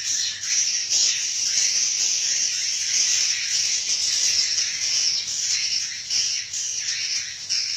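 Dense, continuous high twittering and chattering of many edible-nest swiftlets calling together.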